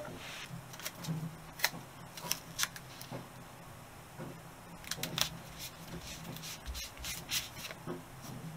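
Hands handling paper and a thin neoprene rubber sheet on a workbench: scattered short rustles, rubs and light taps.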